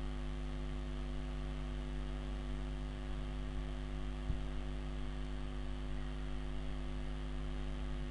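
Steady electrical mains hum with one faint click about four seconds in.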